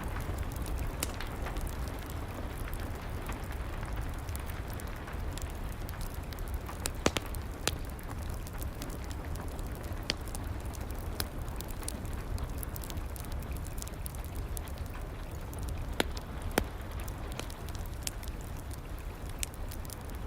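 Wood fire crackling under steady rain, with a low rumble beneath and scattered sharp pops from the fire, the loudest about seven and sixteen seconds in.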